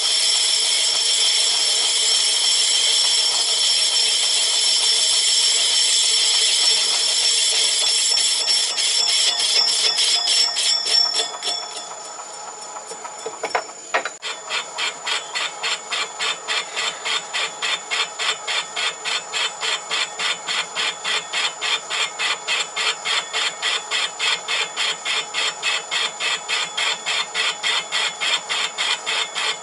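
Myford ML7 lathe machining a cast flywheel on its faceplate. A steady cutting hiss runs for the first ten seconds or so and then dies away. A single knock comes about fourteen seconds in, and after it a rhythmic scraping cut pulses about twice a second.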